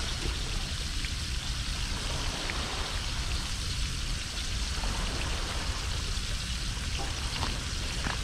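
Pieces of fish and potato frying in hot oil in a pan over a wood fire: a steady sizzling hiss with a few faint pops, over a low rumble.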